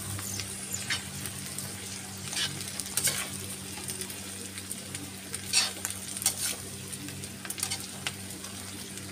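Chickpeas, onion and capsicum frying in a metal kadai as they are stirred with a perforated steel spatula: a steady sizzle, with irregular scrapes of the spatula against the pan.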